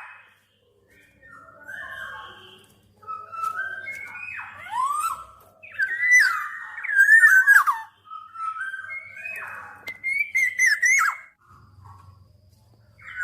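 Black-naped oriole singing: a series of fluty whistled phrases of sliding, looping notes, about four phrases with short pauses between them, then a brief lull near the end.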